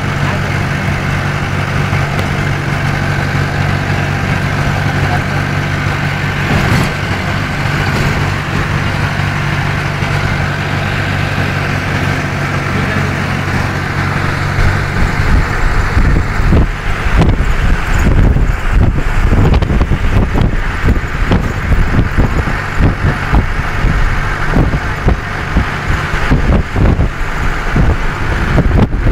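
Bus engine running with road noise, heard from inside the cabin: a steady low hum for the first half. About halfway through it turns louder and rougher, with irregular jolting rumble.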